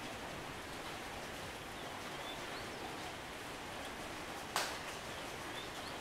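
Steady hiss of light rain falling on the foliage, with faint short high chirps of small birds in the background. One sharp tap stands out a little after halfway.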